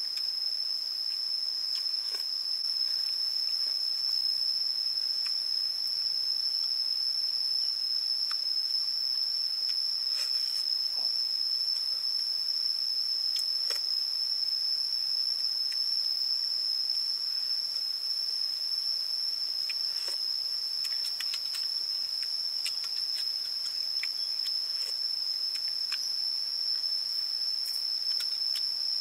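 Insects keeping up a continuous high-pitched trill at one steady pitch, with a few faint scattered clicks.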